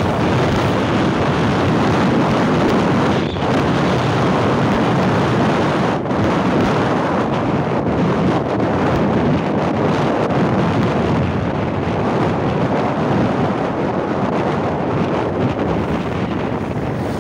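Wind buffeting the microphone of a phone carried on a moving motorbike: a loud, steady rushing noise.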